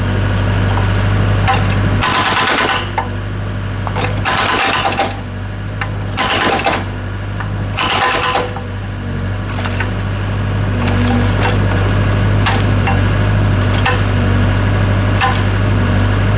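Excavator-mounted hydraulic breaker hammering concrete rubble in four short bursts of rapid blows in the first half, over the excavator's steady engine drone. In the second half the engine runs on steadily, with scattered light ticks and knocks.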